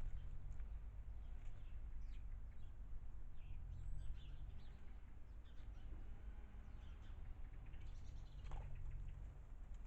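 Small garden birds chirping and calling in short, scattered notes, over a steady low rumble.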